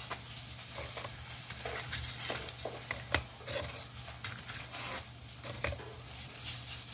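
Light handling noises, soft rustles and small irregular clicks, as frozen pollack fillets are laid into a stainless steel bowl, with one sharper click about three seconds in.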